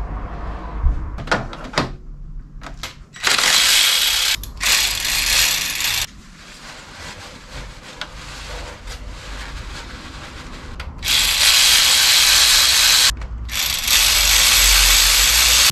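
Cordless electric ratchet running in four bursts of one to two seconds, in two pairs, driving engine-bay bolts. A few sharp clicks of tools on metal come in the first two seconds.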